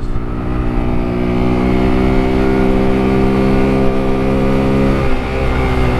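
Motorcycle engine running under way on a dirt track, heard from on board, holding a steady pitch with a brief dip about five seconds in.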